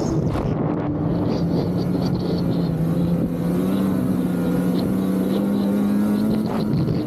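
Polaris 850 Assault snowmobile's two-stroke twin engine running under way at a steady pace. Its pitch climbs slowly through the middle, then drops near the end as the throttle eases.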